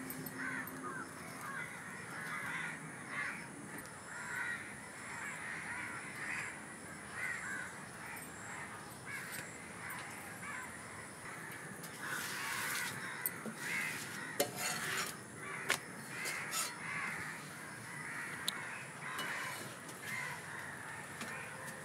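Crows cawing over and over, with a few sharp knocks about two-thirds of the way through.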